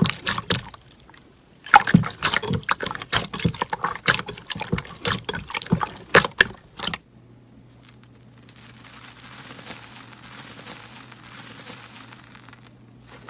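Slime being squeezed and poked by hand: a rapid, irregular run of wet clicks and pops, with a brief lull about a second in. About seven seconds in it gives way to a much quieter soft hiss over a steady low hum.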